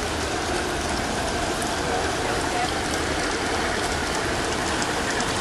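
Steady rushing noise of running water.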